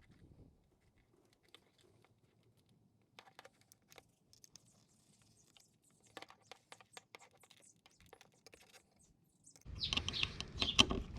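Faint, scattered clicks and taps of small parts being handled. About ten seconds in, a much louder voice-like sound starts.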